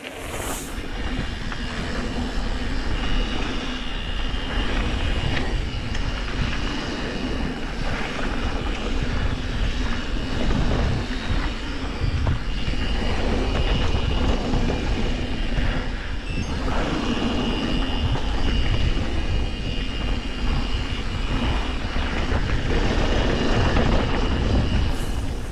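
Wind buffeting the microphone of an action camera and mountain-bike tyres rolling over a dirt and gravel trail at speed, a steady loud rushing rumble. A thin high whine comes and goes in stretches.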